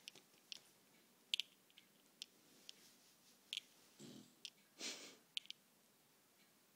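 Sleeping bulldog snoring faintly: two short noisy breaths about four and five seconds in, with faint scattered clicks in between.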